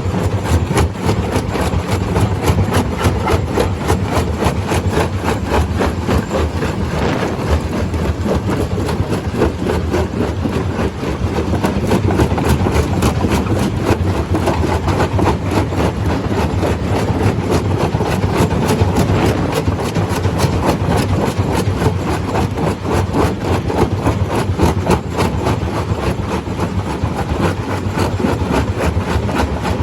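Stone crusher running: a loud, steady machine drone with a dense, continuous clatter.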